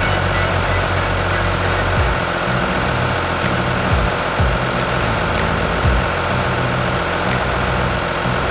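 New Holland tractor's diesel engine running steadily while the front-end loader works. Its pitch dips briefly about every two seconds.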